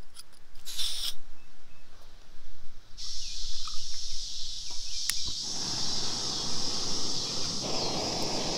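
Canister gas backpacking stove under a pot of water: a sharp click about five seconds in, then the burner hisses steadily, growing louder near the end. Insects keep up a high, steady buzz behind it from about three seconds in.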